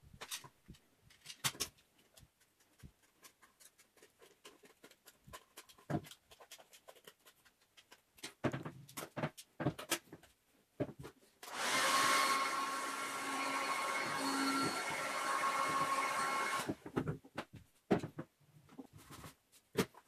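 A vacuum cleaner runs for about five seconds in the middle, pulling through a homemade plastic-bottle hose adapter, and then switches off. Before and after it, hard plastic parts knock and click as the adapter, hose and brush attachment are handled and pushed together.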